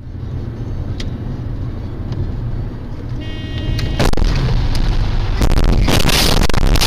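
Dashcam recording of a car crash from inside the car. The steady low rumble of driving is broken by a short high squeal, then a loud bang about four seconds in, followed by a long stretch of loud crashing and rattling as the car is wrecked and its windshield shatters.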